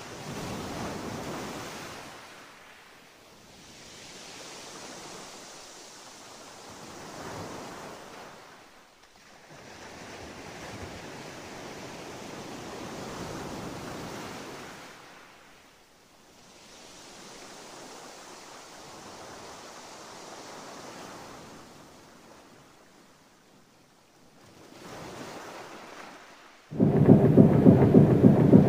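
Sea waves washing in slow swells, rising and falling every few seconds. Near the end a sudden loud, low, droning tone with several pitches cuts in and becomes the loudest sound.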